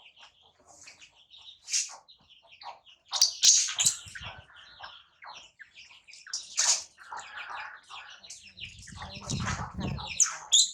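Newborn baby monkey giving a rapid run of short, shrill squeaks and chirps, some of them loud. About eight and a half seconds in there is a low rumble of handling noise.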